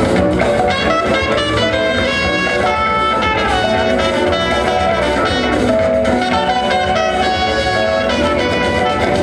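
Loud instrumental break-beat music over a PA system, with a steady beat and horn and guitar lines.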